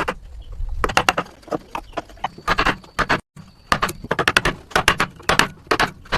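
Quick runs of sharp taps and knocks from hand tools striking wood, in bursts of several strikes each, cut off briefly by a moment of silence a little past three seconds in.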